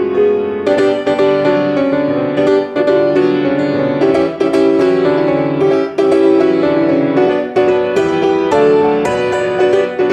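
Solo piano playing a lively passage of quick, closely spaced notes over a lower accompaniment.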